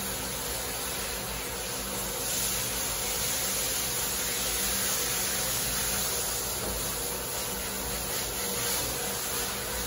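Handheld shower sprayer running water over a dog's coat and splashing into a stainless steel grooming tub, a steady hiss.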